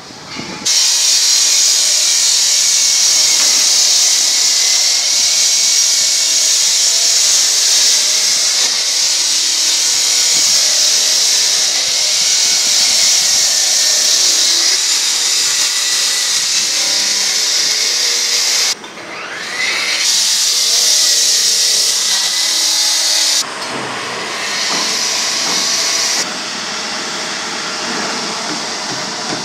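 Steel-cutting saw grinding through steel, a loud, steady, high hiss. It stops briefly about two-thirds of the way in, resumes, and turns quieter for the last few seconds.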